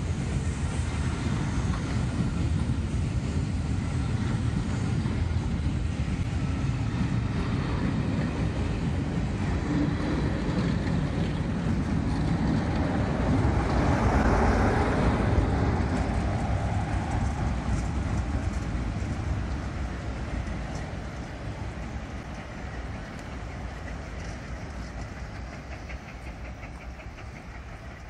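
Passenger coaches rolling past, their wheels clicking over the track. The Class 47 diesel locomotive on the rear passes about halfway through, the loudest moment, and the sound then fades steadily as the train draws away.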